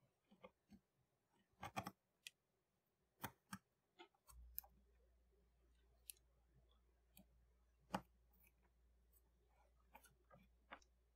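Scattered small clicks from fingers pressing the tactile buttons and handling the wiring of an XH-W1209 digital thermostat module, the loudest near two and eight seconds in. About four seconds in, a low steady hum starts suddenly and keeps going.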